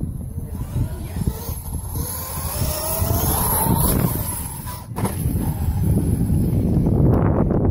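The brushless electric motor of a King Motor X2 RC truck whines up in pitch as the truck accelerates into a jump, then there is a sharp thump about five seconds in as it lands. After the landing the motor whine is gone: the jolt has knocked its battery unplugged.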